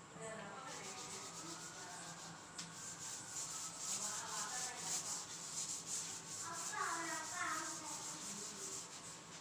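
Cloth duster wiped back and forth across a chalkboard, a run of quick, even rubbing strokes erasing chalk.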